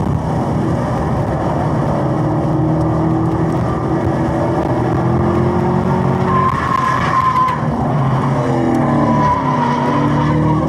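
Chevrolet Camaro ZL1 1LE's supercharged V8 pulling hard on track at around 5,000 rpm, with tires squealing through a corner about six seconds in. Later the engine note falls as the car slows, and more tire squeal comes near the end while the car ahead slides off sideways.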